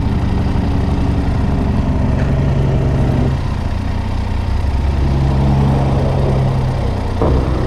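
Triumph Tiger 800 XRx's three-cylinder engine idling steadily, the motorcycle standing still, its pitch shifting slightly a couple of times.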